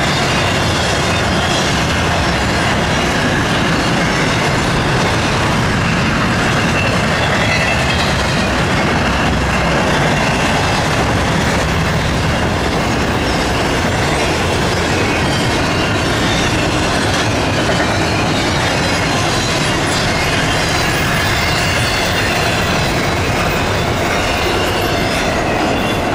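Loud, steady rolling noise of a passing CSX double-stack intermodal freight train, its well cars of containers and trailers running on steel rails.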